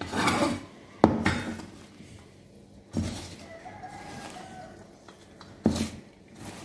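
Hand kneading a stiff pakoda batter of shredded cabbage and flour in a stainless steel bowl: soft squishing and rubbing against the steel, with two sharp knocks on the bowl, one about a second in and one near the end.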